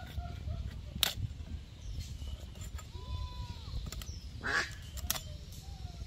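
Raw chicken being cut on a bonti, a curved floor-mounted blade: a few sharp clicks and a scraping crunch as pieces are worked against the edge. Faint short animal calls, chirps and a brief gliding call, sound over a low steady rumble.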